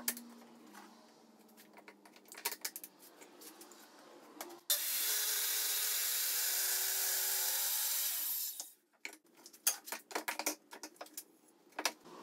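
Scattered clicks and knocks of clamping and handling, then a Ridgid corded circular saw starts suddenly and cuts along the edge of a board for about four seconds, edge-jointing it, before cutting off sharply. More knocks and handling follow.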